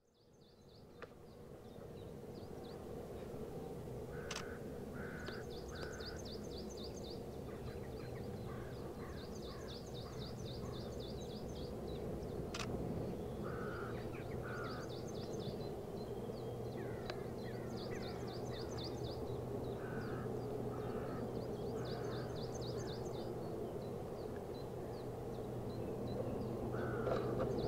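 Distant Airbus A400M Atlas turboprops droning steadily, slowly growing louder, with crows cawing and small birds trilling over it.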